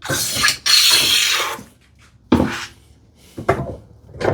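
Two long rasping strokes of a hand tool along the edge of a wooden tambour slat, taking off the sharp corner. After them come a few short, light knocks.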